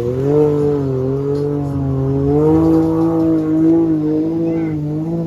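ATV engine revving hard. Its pitch dips briefly at the start, then climbs and holds high with small wavers.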